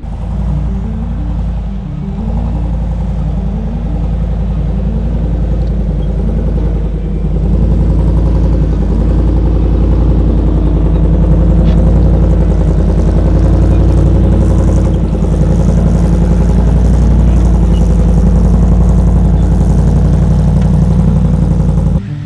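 Vehicle engine running steadily close to the microphone with a dense low throb. It gets louder about a third of the way in, then cuts off abruptly near the end.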